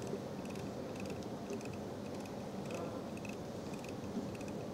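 Faint, irregular small clicks from turning the cutting-tool adjuster on a disc brake lathe, feeding the cutting edge toward the brake disc, over a faint steady hum.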